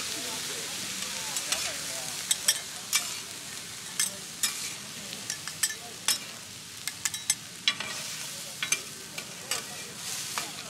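Corn kernels sizzling on a flat metal griddle while two metal spatulas scrape and clack against it, tossing the corn. A steady sizzle runs strongest in the first second, then irregular sharp spatula strikes stand out above it.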